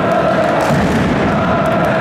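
Large crowd of football-style ultras singing and chanting together in unison, loud and steady, echoing in a sports hall.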